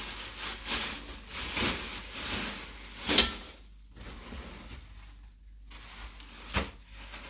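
Plastic food packaging crinkling and rustling as packets are handled, with a sharp crackle about three seconds in, then quieter, with a single click near the end.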